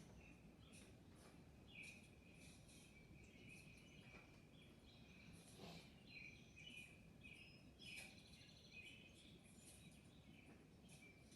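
Faint bird chirps: many short, repeated calls over a low steady hiss.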